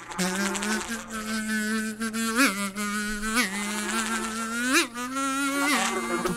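Cartoon buzz of a flying insect pest circling close by: a steady buzz whose pitch swoops up and back down briefly about four times as it passes.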